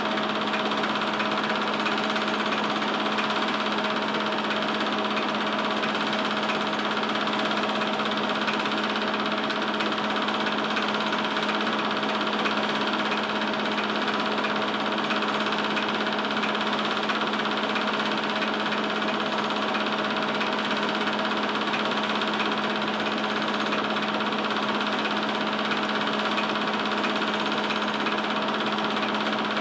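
Home-movie film projector running: a steady mechanical whir with a constant low hum.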